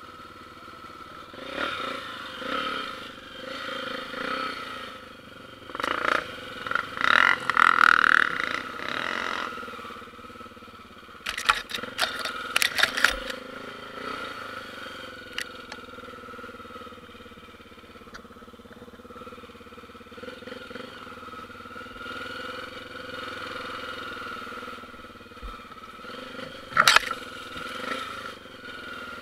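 Single-cylinder four-stroke Honda dirt bike engine running steadily, louder for a few seconds about six to nine seconds in. A burst of clattering knocks comes around eleven to thirteen seconds, and there is one sharp knock near the end.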